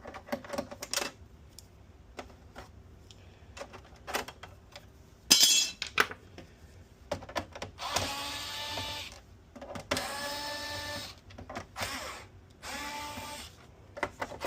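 Light clicks and a sharp clatter of parts being handled. From about eight seconds in come four short whirs of a small electric motor, each about a second long.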